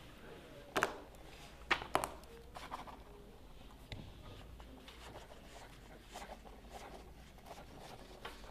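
Someone writing notes by hand: short, scattered scratching strokes and taps, the loudest about a second and two seconds in, then fainter ones.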